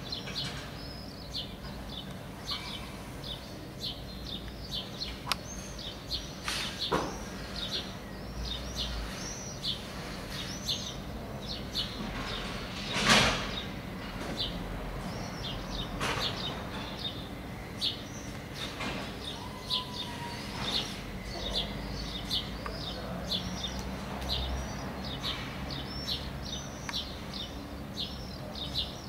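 Small birds chirping outdoors, short high calls repeating several times a second, over a low steady background rumble, with one loud sharp knock about halfway through.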